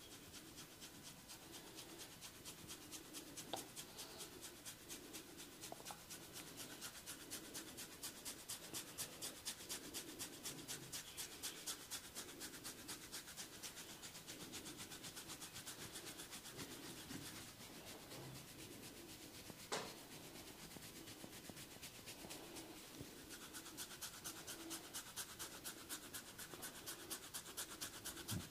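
Fingers scratching briskly through hair on a scalp: a fast, even run of rasping strokes, with one sharp click about twenty seconds in.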